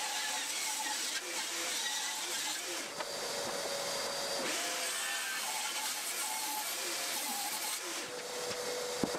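Table saw running steadily with its dust extractor drawing, ripping 2x4 construction timber to width. A background music melody plays over it.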